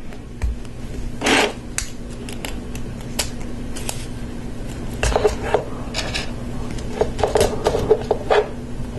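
LEGO Technic plastic parts clicking and clattering as they are handled and pressed together onto an axle, a string of sharp, separate clicks with a louder one about a second and a half in.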